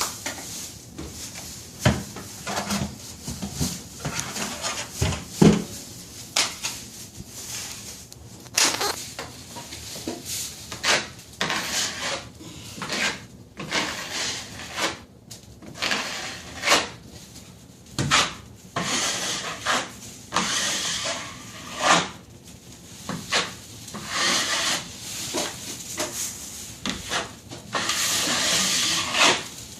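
Metal drywall taping knife scraping joint compound across a ceiling seam in repeated short strokes, with a few sharp clicks and one longer, steadier stroke near the end.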